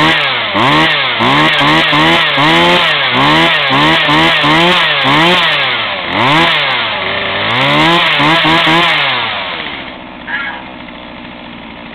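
Sears Craftsman 2.2 two-stroke chainsaw being revved over and over, its engine pitch rising and falling about a dozen times in quick succession. About nine seconds in it drops back to a steady idle.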